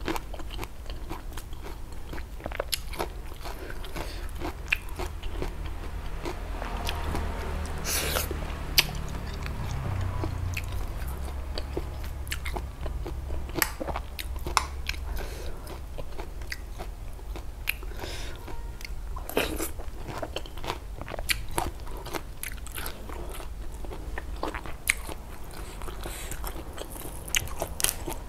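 A person chewing and crunching mouthfuls of spicy snail laab and raw greens close to a clip-on microphone, with frequent irregular wet clicks and crunches.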